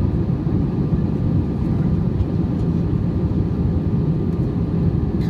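Steady low rumble inside an airliner's cabin during the descent to land, engine and airflow noise heard from a window seat.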